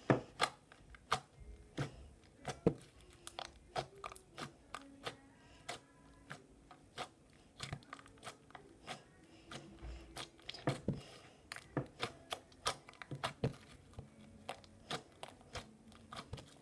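Fingertips poking and pressing into slime, making irregular sticky pops and clicks, a few each second.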